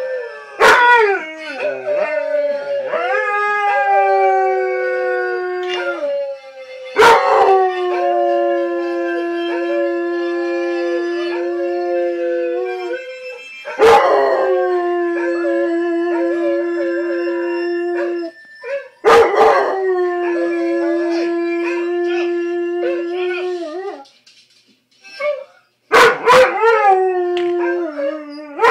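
Weimaraner howling in a run of about five long howls. Each starts sharply, slides down in pitch and then holds a steady note for several seconds, with a short break near the end.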